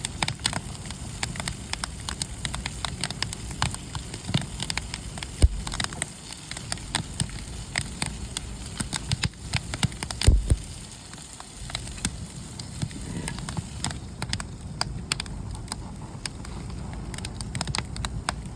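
Wood fire crackling: irregular sharp pops and snaps over a steady low rumble, with a couple of louder dull thumps about five and ten seconds in.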